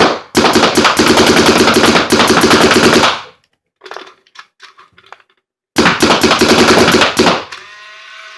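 Geo3 electro-pneumatic paintball marker firing reballs in rapid full-speed strings: one run of about three seconds, a few scattered clicks, then a second shorter run. A steady whir follows near the end.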